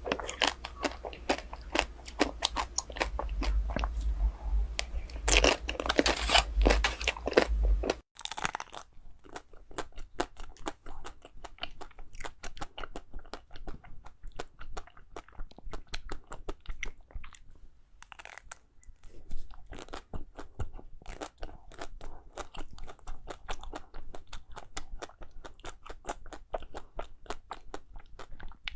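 A person eating ice cream, with a rapid run of crisp crunching bites and chewing. About eight seconds in the sound cuts to a quieter, duller stretch of the same crunching.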